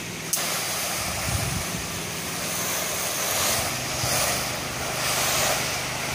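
Low-pressure soft-wash sprayer hissing as it sprays vinyl siding. It starts abruptly just after the opening and swells and eases as the spray moves, over a steady motor hum.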